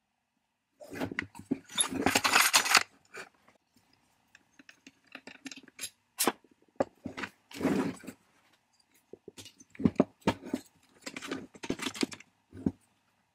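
Hand-work noise from taking apart a small gas-powered hand drill on a wooden bench: the metal tool clunking and scraping as it is turned over, and small metal parts clicking and clinking into a steel parts tray. Irregular knocks and rattles, with denser bursts about a second in and again near the middle.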